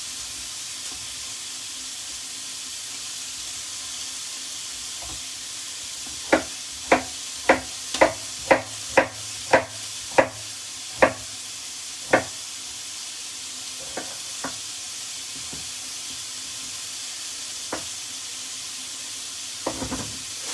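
Chicken breast frying in hot oil with a steady sizzle. About six seconds in, a knife chops on a cutting board, about ten strokes at roughly two a second, followed by a few scattered knocks.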